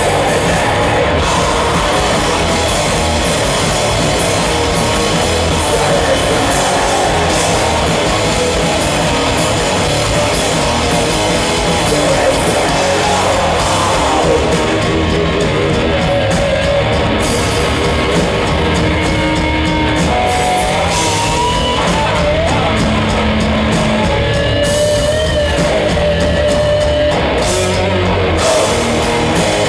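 A heavy metal band playing loud live with distorted guitar, bass and drums. After about halfway the cymbals thin out in places, and sustained guitar notes that bend in pitch stand out.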